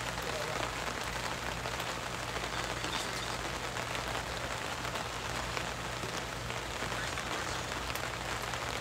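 Steady outdoor hiss with faint scattered ticks, and a low steady hum underneath.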